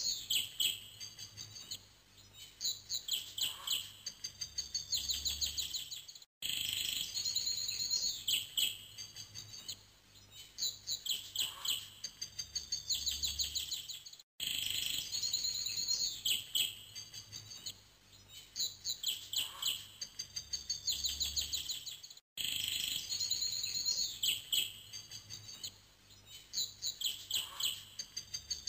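Birdsong, rapid high chirps and trills, as a looped recording: the same stretch of about eight seconds repeats over and over, with a brief cut between repeats.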